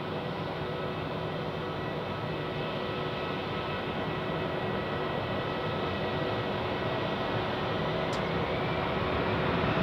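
Airbus A330-300 airliner with Rolls-Royce Trent 700 engines, rolling along the runway after landing with its engines at low power: a steady rumble with a whine, slowly growing louder. About eight seconds in, a higher whine starts to rise in pitch.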